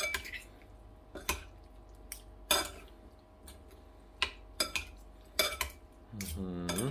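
Metal fork clinking and scraping against a ceramic bowl while a minced pork and pork-skin salad is stirred together, about eight sharp clinks at uneven intervals. A person's voice is heard briefly near the end.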